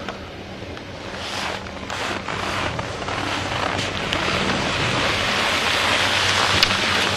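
Wind rushing over the microphone and the hiss of sliding over packed snow, growing steadily louder as speed builds, with a faint low hum underneath.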